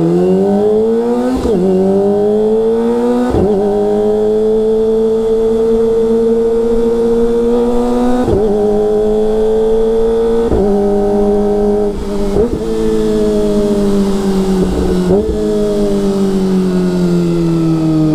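Kawasaki ZX-25R's 249 cc inline-four pulling through the gears on quickshifter shifts. The engine note climbs and is cut briefly about six times as each gear goes in, then holds fairly steady and falls off slowly near the end.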